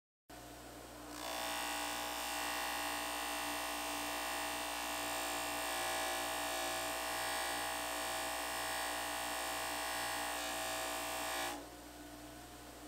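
Bench motor spinning a fine non-woven abrasive cleaning wheel with a steady whirring hum. About a second in, a rusty bolt is pressed against the wheel, adding a steady scouring hiss as the rust is polished off; it is lifted away about a second before the end, leaving the motor's hum alone.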